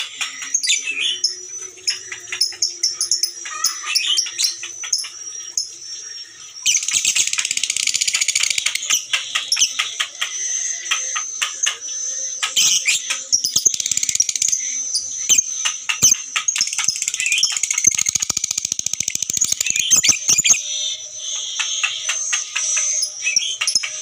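Caged Fischer's lovebirds calling in rapid, high chirps. About seven seconds in, this breaks into a long, unbroken chattering trill, the 'ngekek' song prized by lovebird keepers, which runs for over ten seconds before falling back to scattered chirps.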